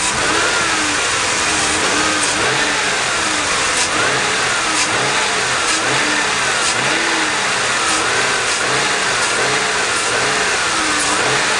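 2001 Mercury Grand Marquis 4.6-litre V8 running steadily, with a wavering note that rises and falls about once a second. The note sounds like a vacuum, and the owner says it was never there before the throttle body spacer was fitted.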